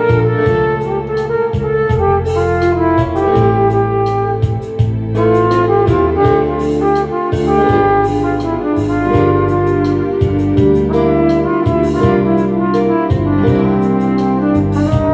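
Flugelhorn playing a slow melody of long held notes over a backing track with bass and a steady drum beat.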